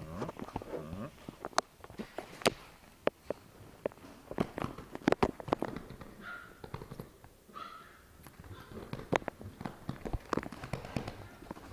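A puppy scrabbling and playing on a leather couch: irregular taps, scuffs and knocks from its paws and body on the leather, with two short squeaks near the middle.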